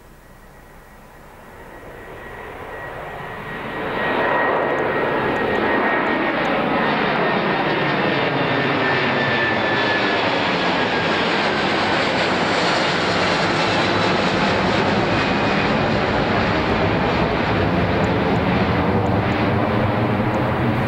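Airbus A330 jet engines at takeoff climb power, heard as the aircraft passes overhead. The engine noise builds over the first four seconds, then holds loud and steady, with a high whine that slides slowly downward in pitch as the jet goes over.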